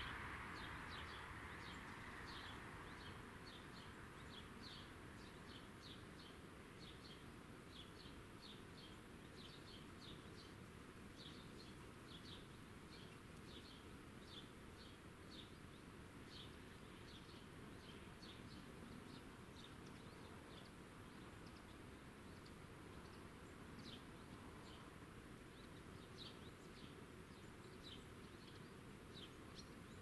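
Quiet countryside ambience: short, high chirps repeat irregularly throughout, over a faint rushing noise that fades away in the first few seconds.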